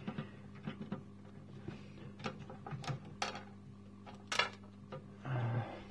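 A few sharp, scattered clicks and small knocks as hands handle the laser tube's high-voltage cable and its fitting on the glass tube, over a faint steady low hum.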